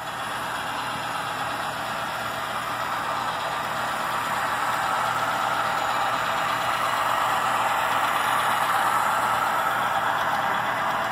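Model train of diesel locomotives pulling freight cars past: a steady running and rolling noise that grows louder as the train draws near.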